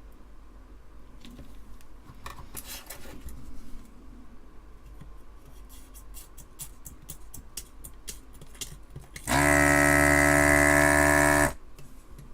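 Faint clicks and scrapes of a desoldering tool's tip on the board, then about nine seconds in its vacuum pump runs for about two seconds as a loud steady motor hum that starts and stops abruptly, sucking at a solder joint.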